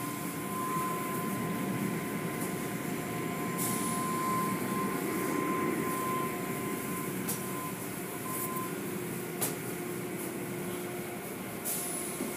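Automatic car wash running: a steady rush of water spray and machinery as cloth curtain strips and brushes sweep over a car. A thin, steady whine fades out about two-thirds of the way through, and a few sharp knocks stand out.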